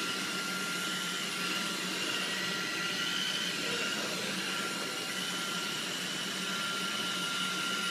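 Steady hiss of background noise with a faint, steady high whine running through it; no distinct sounds stand out.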